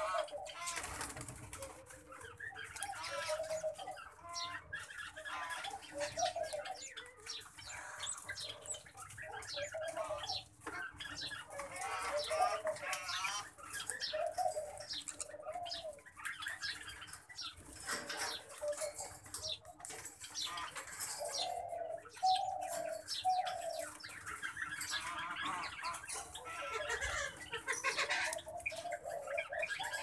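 Caged birds calling: a steady run of short chirps and calls from several birds, one after another.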